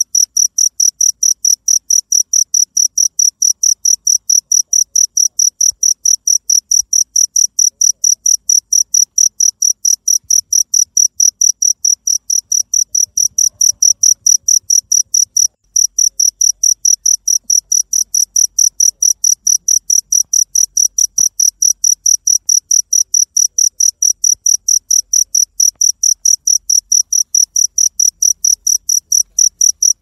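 A cricket chirping steadily: a clear, high note pulsed about four times a second, with a brief break about halfway through.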